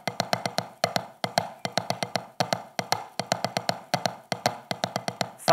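Wooden drumsticks playing quick, even strokes on a practice pad: groups of three in the left hand under a steady quarter-note pulse, with some strokes louder than the quieter ghost notes between them.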